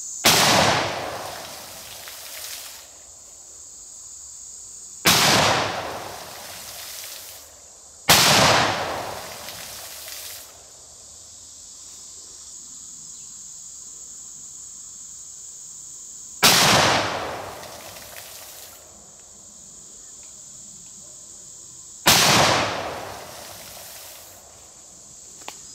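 Five 12-gauge shotgun blasts, 3.5-inch shells loaded with BB shot, at uneven intervals. Each shot rolls off in an echo lasting about two seconds. A steady high insect trill runs underneath.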